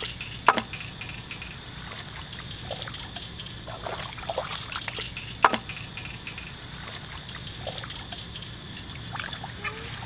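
Shallow muddy paddy water sloshing and trickling as a barefoot boy wades and gropes through it by hand, with two sharp smacks, about half a second in and again about five seconds later.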